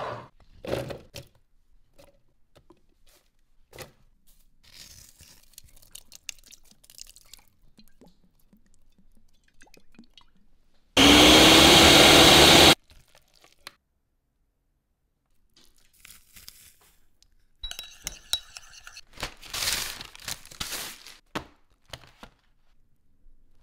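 Food processor motor running for a little under two seconds about halfway through, chopping olive salad, its pitch rising briefly as it spins up. Before it, a glass jar is set down on a wooden board with a couple of knocks; later come rustling and scraping handling noises.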